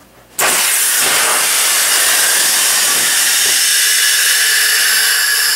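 ABS Vario avalanche airbag deploying: the pulled trigger fires the nitrogen canister and gas rushes into the twin airbags with a loud, steady hiss that starts suddenly about half a second in.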